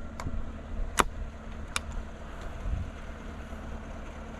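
Vehicle engine running with a steady low rumble, with three sharp clicks in the first two seconds, the middle one loudest.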